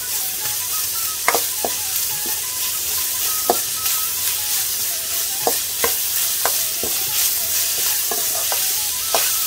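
Chopped onion sizzling in oil in a stainless steel kadai, sautéing, while a metal spoon stirs it. The spoon scrapes and clinks against the pan every second or so.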